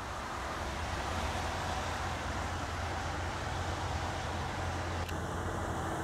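Steady low rumble of road traffic on a snow-covered street, with a faint click about five seconds in.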